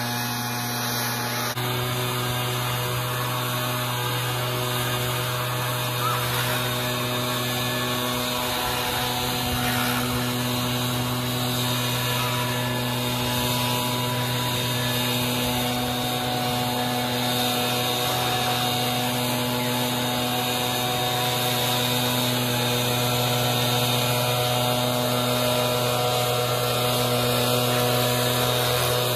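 Stihl BR 430 backpack leaf blower's two-stroke engine running steadily, its air blown up through a long PVC pipe extension to clear leaves out of a roof gutter.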